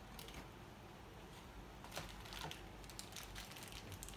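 Faint crinkling and light clicks of cardboard packaging and a plastic-wrapped accessory being handled while a Nokia E71 phone box is unpacked, the clicks bunching up from about halfway through.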